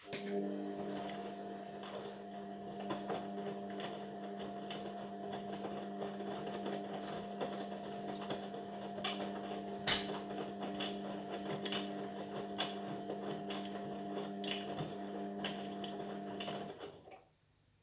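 Indesit washing machine running on a sport wash cycle: a steady electrical hum with scattered clicks and knocks. It starts suddenly and cuts off about a second before the end.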